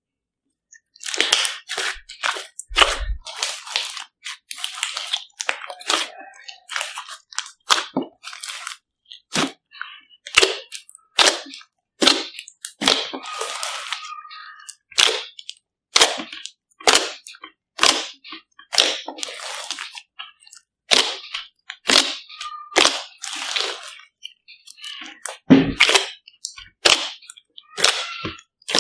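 Large mass of glossy homemade slime being squeezed and poked by hand, giving sharp, irregular pops and crackles, a few a second, starting about a second in.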